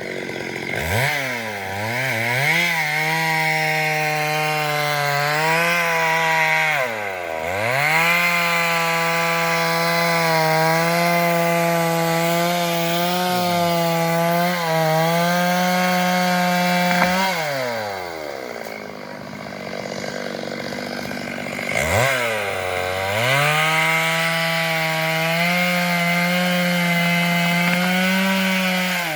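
Chainsaw cutting into the trunk of a large simal (silk cotton) tree, running at a steady high pitch under load. Several times the engine note drops away sharply as the throttle is let off and then climbs back up, and for a few seconds past the middle it falls back to a lower, quieter running before revving up again.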